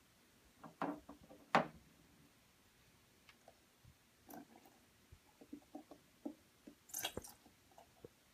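White glue squelching out of a squeezed plastic bottle into a bowl of water, with scattered light clicks and knocks of the bottle and bowl.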